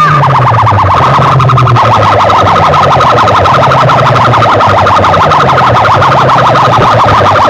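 Very loud fast-warbling siren effect played through a large DJ loudspeaker system, with deep bass tones that repeatedly slide downward underneath.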